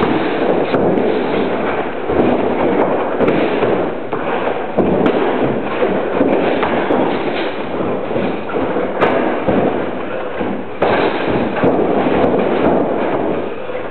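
Two boxers sparring in a ring: a dense, continuous run of thuds and knocks from gloves landing and feet shuffling and stamping on the ring canvas.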